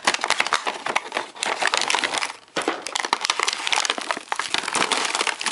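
Clear plastic packaging bags crinkling and crackling as action-camera accessories are handled out of their box, almost without pause, with a short break about two and a half seconds in.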